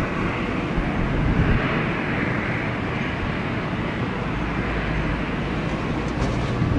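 British Airways Boeing 787's Rolls-Royce Trent 1000 jet engines running at approach power as it comes in to land, a steady rushing noise, with low wind rumble on the microphone.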